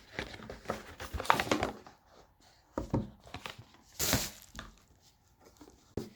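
Wrapping paper being torn and crumpled as a present is unwrapped, in irregular rustling bursts, the loudest about four seconds in, with a short click near the end.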